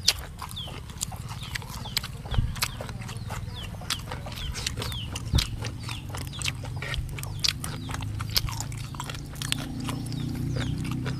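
Close-up chewing and lip-smacking of people eating: a quick, irregular run of sharp wet mouth clicks and smacks over a low steady hum.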